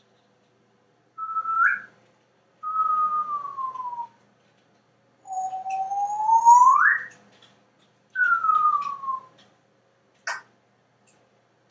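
African grey parrot imitating a slide whistle: four whistled glides, alternately rising and falling. The third is the longest and loudest and sweeps upward. A short click follows near the end.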